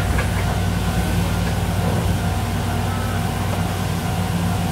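Chikuho Electric Railroad 3000 series tram car standing at a station, its onboard equipment humming steadily with a constant low drone.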